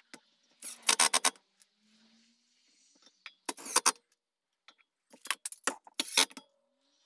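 Makita cordless impact driver driving screws into the wooden seat in three short bursts of rapid hammering: about a second in, midway, and near the end.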